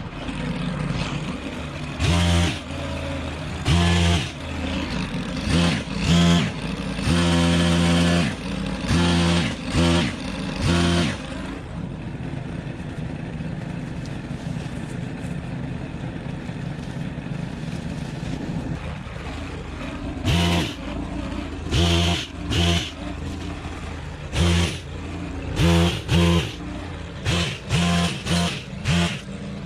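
Stihl KM 130R KombiMotor's 4-MIX engine driving the HT-KM pole pruner's chain, opened up to full throttle in repeated short bursts as it cuts spruce branches and dropping back to idle between cuts. There is a longer idle of about eight seconds in the middle, and the bursts come quicker near the end.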